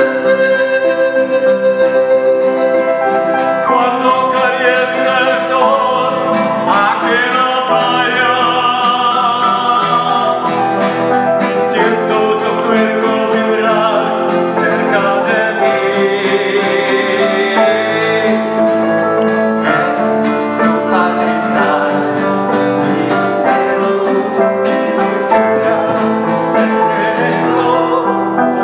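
Live acoustic music: a panpipe melody at the start gives way, about four seconds in, to a man singing over an acoustic guitar, with piano accompaniment.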